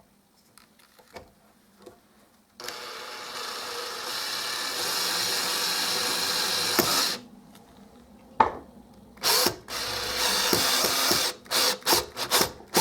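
Power drill driving a self-drilling screw into a paint-roller pole. It makes one steady run of about four seconds, stops, then gives two shorter runs and several quick bursts near the end as the screw is seated.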